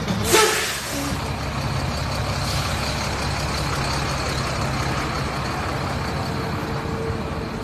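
Large tour coach's engine idling steadily beside the listener, with a brief loud hiss just after the start.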